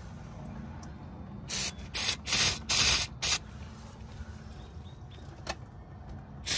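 Aerosol brake cleaner sprayed in several short hissing bursts, clustered between about one and a half and three and a half seconds in.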